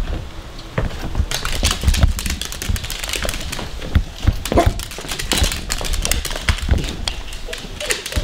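A small dachshund's claws clicking and tapping on a hardwood floor as it trots about, a quick run of sharp irregular taps.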